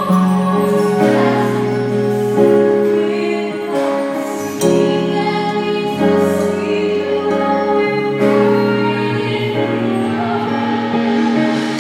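Two women singing a duet in harmony with musical accompaniment, holding long notes that change every second or two.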